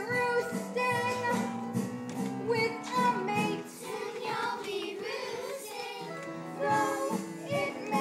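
Young stage cast singing a show tune together over instrumental accompaniment, the voices wavering with vibrato on held notes.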